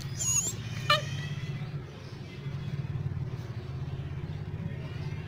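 A puppy gives a brief high whine, then a single short yelp about a second in, over a steady low rumble.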